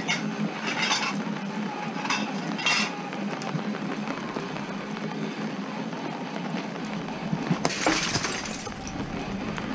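A bat strike smashing breakable items about eight seconds in, a quick cluster of sharp cracks with clinking shards. Earlier come a few lighter clinks of hard objects knocking together.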